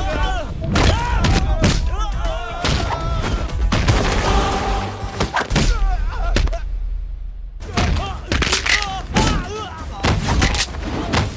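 Fight-scene sound effects: a string of sharp punch and body-impact hits, most of them in the second half, over music and shouting voices.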